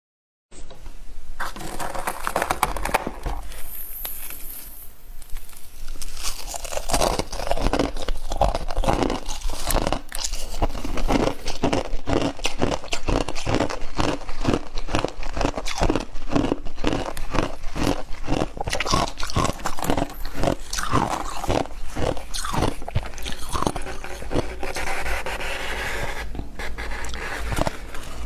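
Close-up crunching of freezer frost being bitten and chewed, a steady run of crisp crunches about two to three a second.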